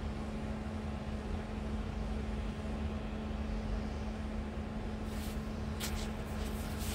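Wrightbus Gemini 3 double-decker bus idling: a steady low drone with a constant hum, and a few light clicks near the end.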